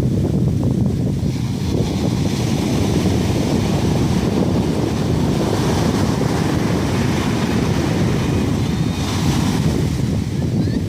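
Atlantic Ocean surf washing up on the beach, heard under heavy wind rumbling on the microphone. The hiss of the surf swells about two seconds in and again about a second before the end.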